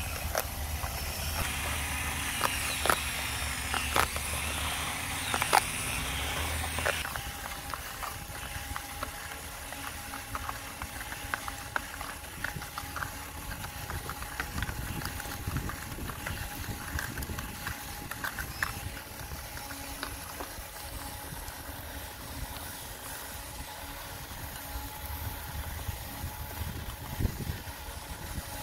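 Small 6–12 V DC motors whirring as a model bucket wheel excavator's wheel scrapes into sand, with sharp clicks and rattles of the plastic-and-zinc buckets for the first several seconds. After that the motors settle into a steady whine, with scattered light clicks as the conveyor carries the sand.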